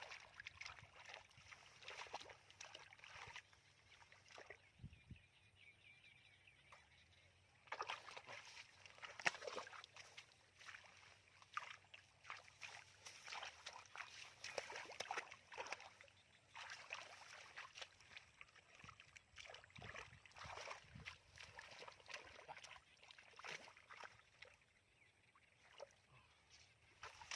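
Faint, irregular sloshing and splashing of muddy water as hands grope through the mud for fish, with a quieter lull a few seconds in.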